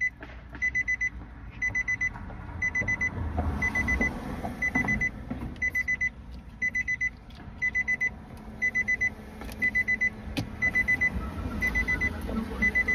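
Electronic beeper sounding in short runs of rapid high beeps that repeat about once a second, over rustling and handling noise, with a sharp click about ten seconds in.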